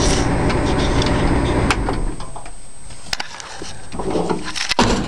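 Freshly rebuilt 1965 Ford 352 V-8 running steadily, heard from inside the car's cabin. About two seconds in the engine sound drops to a quieter, thinner level, and a few sharp clicks follow.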